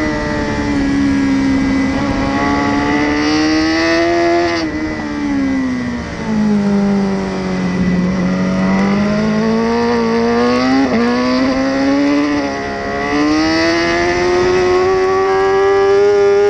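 BMW S1000RR's inline-four engine heard on board at speed, with a rush of wind. The revs drop in steps under braking about four to six seconds in and stay low through a leaned-over corner, then climb, dip sharply with an upshift about eleven seconds in, and rise again toward the end.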